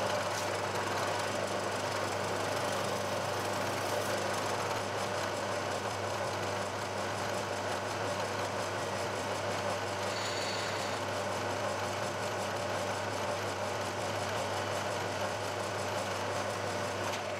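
Milling machine running steadily while a spot drill cuts holes in a metal plate clamped in the vise.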